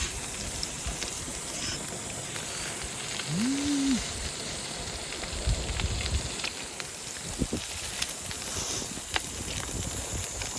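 Food sizzling in a hot pan on a camp stove, a steady crackling hiss. A short rising-and-falling hum comes about three seconds in.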